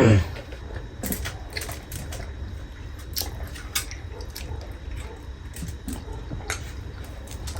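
Close-up eating sounds: chewing buffalo momos with many sharp, irregular mouth clicks and wet smacks. The loudest sound is a short one falling in pitch right at the start.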